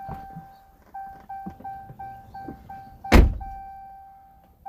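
Pickup truck's dashboard warning chime sounding as the ignition is switched on. It plays a held electronic tone, then a run of quick beeps about three a second, then the tone again. A single loud thump comes about three seconds in.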